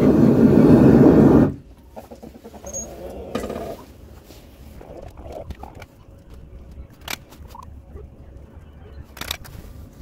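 Melting-furnace burner running with a loud, steady roar that cuts off suddenly about a second and a half in, leaving a few scattered metal clicks and knocks.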